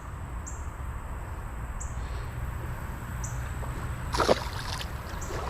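Steady outdoor creek ambience: an even wash of noise with a low rumble, faint short high chirps repeating about every second and a half, and a brief louder sound about four seconds in.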